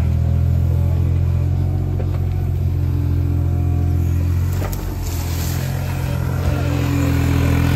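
Hitachi mini excavator's diesel engine running steadily under working load while the machine digs and swings a bucket of soil. The engine note dips briefly about two-thirds of the way through.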